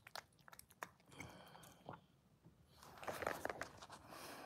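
A cat eating from a metal bowl, chewing and crunching its food in a run of small crisp clicks over the first two seconds. A louder rustle follows near the end.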